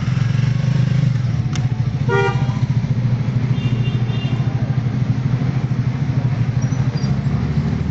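Ferrari supercar engines running steadily at low revs as the cars creep out of a driveway, with a short horn toot about two seconds in.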